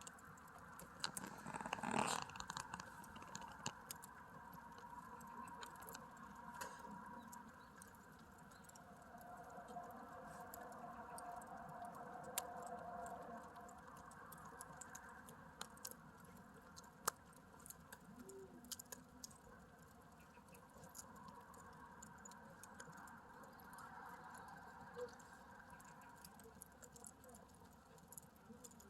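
Wood log fire crackling faintly, with scattered sharp pops and snaps over a soft steady hiss, a louder flurry of crackles about two seconds in.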